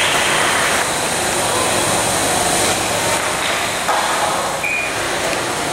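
Arena sound of an ice hockey game: a steady noisy wash of skates and sticks on the ice, with a few faint shouts.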